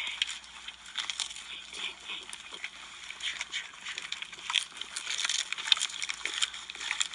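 Pigs eating cabbage leaves: irregular wet crunching and smacking, many short crackles close together.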